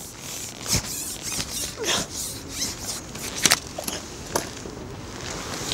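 Scattered light rustles and clicks of handling noise as an angler plays a hooked perch on a short pole, with the sharpest click about three and a half seconds in.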